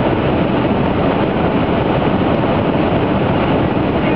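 Steady, even rushing noise inside a car's cabin, loud and without any break.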